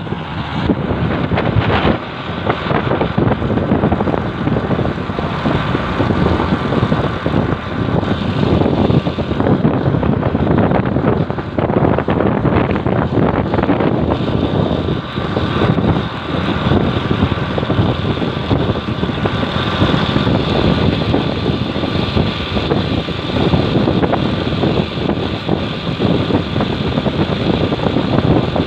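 A moving motorcycle: wind buffeting the microphone over engine and road noise, rising and falling in loudness throughout.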